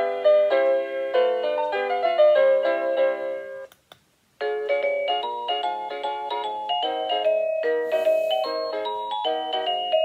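Byron DBY-22311 portable wireless doorbell chime playing one of its electronic melody tunes as a string of clean piano-like notes. It cuts off with a click just under four seconds in as the next tune is selected, and after a short silence another melody starts.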